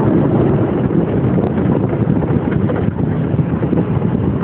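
Wind buffeting the microphone while riding in a moving open train car, a loud, rough, steady rumble with the train's running noise underneath.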